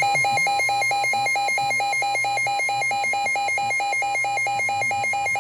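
Weather radio alert alarm for an incoming special marine warning: an electronic tone switching rapidly between two pitches, about five times a second, over a steady single tone.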